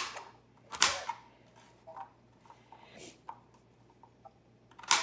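Kitchen knife chopping vegetable pieces on a cutting board: a few sharp knocks of the blade hitting the board, at the start, about a second in, about three seconds in and near the end, with lighter taps between.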